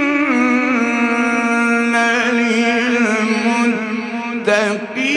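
A male qari chanting Quran recitation in melodic mujawwad style: one long held note with wavering ornamental turns, breaking off briefly about four and a half seconds in and then carrying on.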